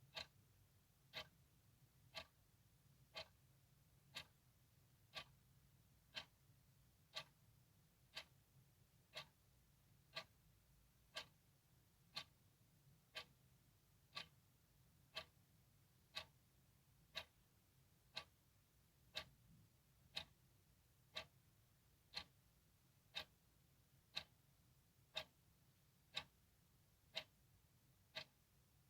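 Clock ticking steadily, one sharp tick each second, every tick the same.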